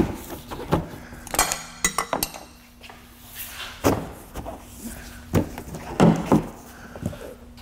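Plastic rear bumper cover being pressed and pushed by hand into its clips on the body: a series of sharp, irregular clicks and knocks.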